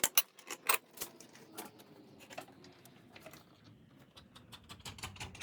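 Hand tool working a stubborn brake booster bolt loose: irregular metallic clicks and clinks, thickest in the first second, then sparser.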